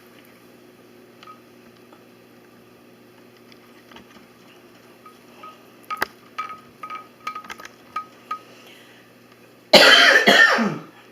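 A man coughing hard once near the end, for about a second, the loudest sound here. Before it comes a run of light clicks and taps.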